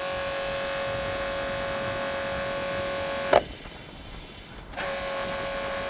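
Steady electric buzz with no engine firing. It cuts off with a sharp click a little over three seconds in and comes back about a second and a half later.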